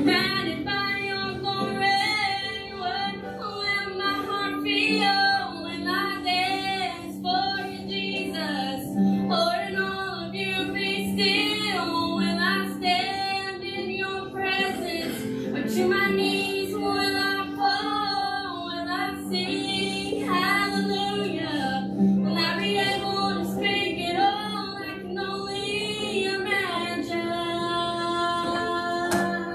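Slow song with a female voice singing a wavering melody over sustained, held accompaniment chords.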